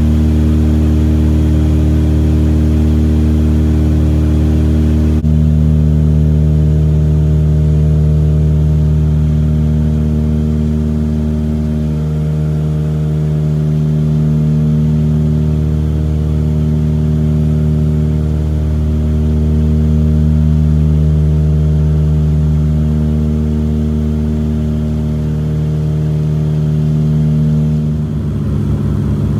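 Steady drone of a small twin-engine propeller plane heard from inside the cabin, with a slow rise and fall in places as the engines drift in and out of step.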